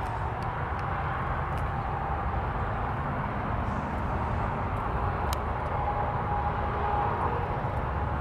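A 6.5-litre V8 diesel engine in a Humvee idling steadily, heard close up in the engine bay as a low, even rumble. A faint steady whine comes in over it in the last couple of seconds.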